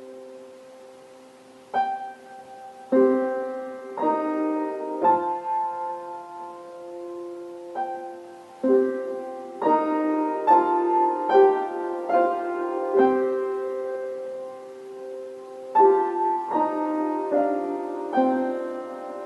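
Slow solo piano music: single notes and chords struck about once a second, each left to ring and fade.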